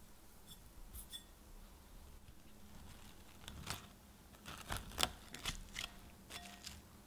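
Plastic cling wrap crinkling and crackling as it is stretched over a glass mixing bowl and pressed around the rim, in a quick run of crackles loudest about five seconds in, with a brief squeak near the end.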